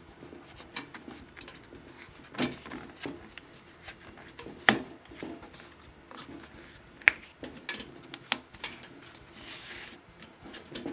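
Handling noise as foam and leather are pressed into the bare metal lid of a small tool chest: scattered clicks and light knocks, with two sharper knocks about halfway through and about two-thirds of the way in, and a short soft rustle near the end.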